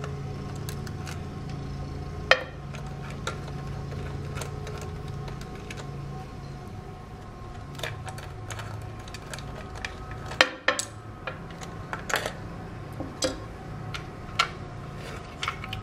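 Scattered clicks and light metallic clinks of screws, the CPU cooler mounting bracket and its metal backplate being handled and taken off a motherboard, over a steady low hum. The sharpest clinks come about two seconds in and in a cluster from about ten to fifteen seconds.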